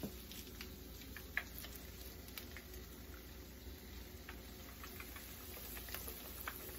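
Hot oil in a skillet crackling with scattered small pops and ticks. A breaded catfish fillet is lowered in partway through, and the frying grows a little busier near the end.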